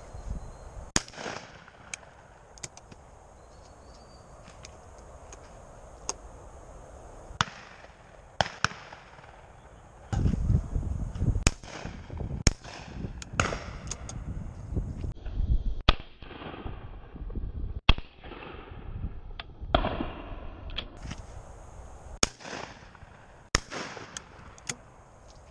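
Shotgun fire on a driven game shoot: a string of single and paired shots, some far off and echoing, others close and much louder. There is a spell of low rumble about ten seconds in.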